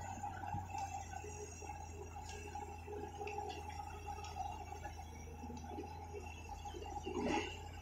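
Long-reach excavator running with a steady low hum while its bucket works under the water of the canal, with a brief louder swish about seven seconds in.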